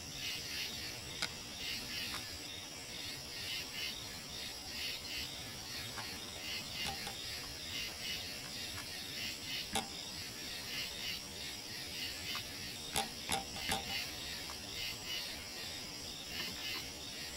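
A chorus of night insects: a steady, high, rhythmic pulsing trill. A few sharp clicks cut through it, one about halfway and three in quick succession a little later.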